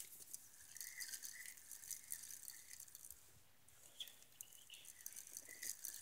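Faint, short bird chirps repeating irregularly over a light ticking hiss, the whole very quiet.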